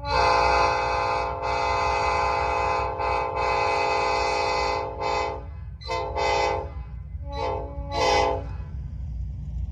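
Multi-chime railroad air horn sounding a chord: three long blasts close together, then four short toots.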